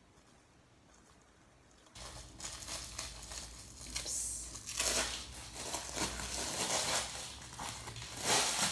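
Thin plastic bag crinkling and rustling in the hands as it is worked and torn open, starting about two seconds in and going on in irregular loud crackles.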